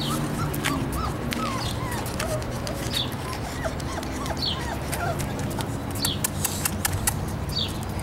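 Bullmastiff puppies whimpering: a run of short, high squeaks in the first five seconds or so, thinning out after that.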